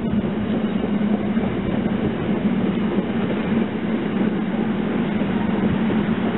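SEPTA electric commuter train approaching on the electrified line: a steady rumble with a low hum.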